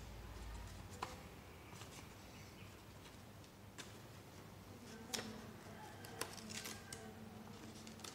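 Faint handling of paper being folded and creased: scattered soft crinkles and ticks, with a few sharper clicks about a second in and again between about five and seven seconds in, over a steady low hum.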